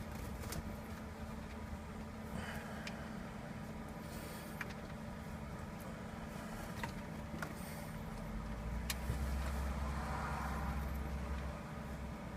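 Steady low hum in the car cabin, with scattered small clicks and taps of a Torx driver working stubborn T20 bolts out of the centre-console trim. A heavier low rumble comes in from about eight to eleven and a half seconds.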